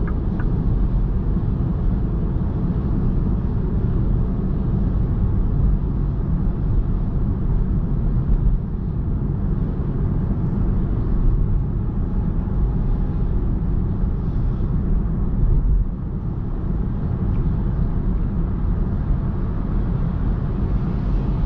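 Steady low road and tyre rumble of a 2021 MINI Cooper S E ALL4 Countryman plug-in hybrid driving along.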